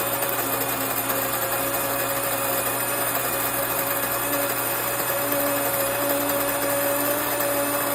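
Electric countertop grain mill running steadily, grinding grain into flour: a constant motor whine over a rough grinding hiss.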